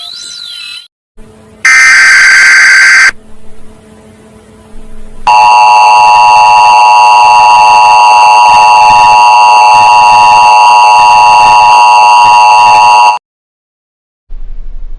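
Electronic emergency-alert alarm tones. A few stepped notes open, then a short, very loud buzz comes about two seconds in, and a steady, very loud multi-tone alarm follows for about eight seconds before cutting off suddenly.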